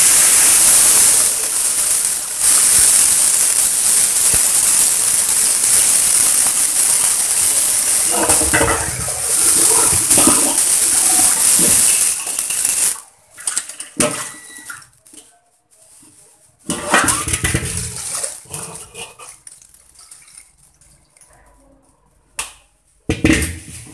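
Tap water running hard into a metal wok as it is rinsed, stopping about thirteen seconds in. A few short sloshes and knocks follow as the wok is tipped over the sink.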